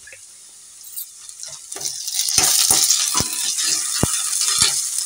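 Onions, chillies and freshly added ginger-garlic paste frying in oil in a non-stick kadai, stirred with a spatula. The sizzle starts about two seconds in, with the spatula knocking against the pan about twice a second.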